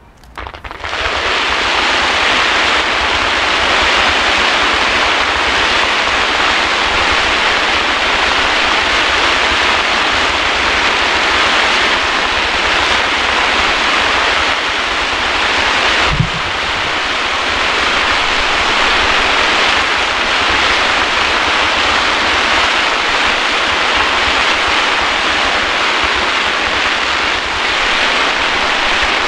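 Fireworks firing from a row of ground-level positions as a continuous barrage: a loud, steady rushing hiss over a low rumble that starts abruptly about half a second in, with a single sharp bang about halfway through.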